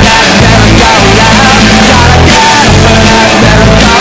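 Loud music with a singing voice over a heavy bass line.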